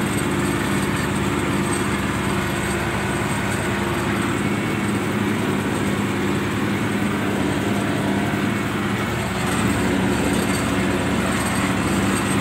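MTZ-82 tractor's four-cylinder diesel engine running steadily under load while pulling a disc harrow through wheat stubble, heard from inside the cab.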